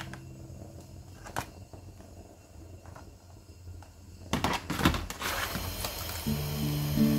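Clicks and knocks of kitchen things being handled: a few single clicks, then a quick cluster of them about four seconds in, followed by a short hiss. Soft guitar music comes back in near the end.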